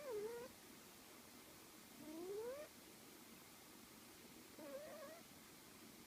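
Sleeping cat snoring faintly: three short squeaky, whistling breath sounds about two and a half seconds apart, the first falling in pitch, the second rising, the third wavering.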